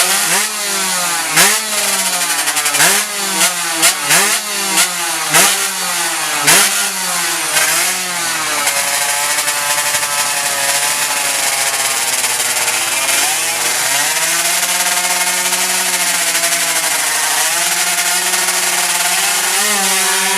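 Two-stroke underbone drag bike engine revved in about nine quick throttle blips over the first eight seconds. It then runs at a steadier speed with slight rises and falls.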